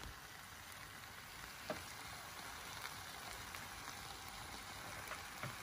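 Broccoli, corn and sweet pepper sautéing in coconut oil in a frying pan: a faint, steady sizzle, with a couple of small ticks from the pan.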